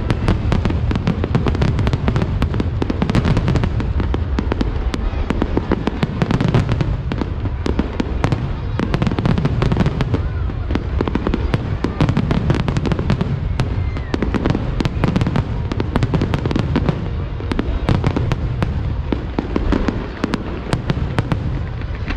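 Fireworks display in full barrage: many sharp cracks a second over a continuous low rumble of bursting shells, without a break.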